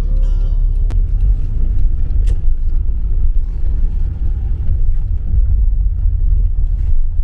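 A car driving, heard from inside the cabin: a loud, steady low rumble of engine and road.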